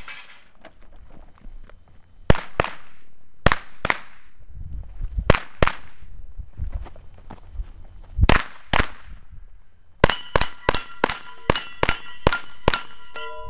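9mm pistol-caliber carbine fired in four quick pairs of shots with pauses between. About ten seconds in comes a fast string of about a dozen shots, roughly three a second, with steel plates ringing after the hits.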